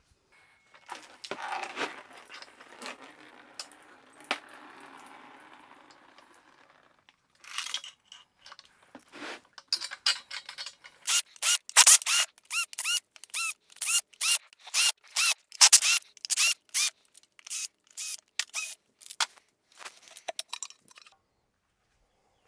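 Hand tools working on metal engine parts: some soft clatter and handling at first, then from about ten seconds in a long run of sharp metallic strokes, roughly two a second, each with a brief ringing note.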